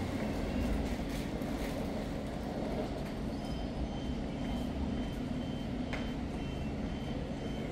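Southern Class 377 electric train standing at the platform with a steady low hum, and from about three seconds in a short high beep repeating about twice a second: the door-closing warning.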